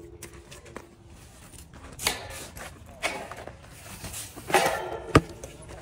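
Metal being struck and handled: a ringing clang dies away at the start, then knocks and clanks come about a second apart, with a sharp click near the end.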